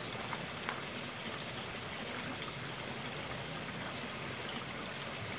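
Steady, even hiss of water running or trickling, with one faint tick a little under a second in.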